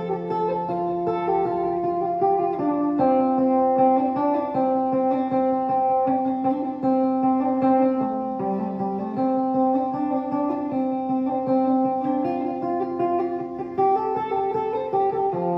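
Background music: an instrumental led by plucked guitar, with chords that change every few seconds.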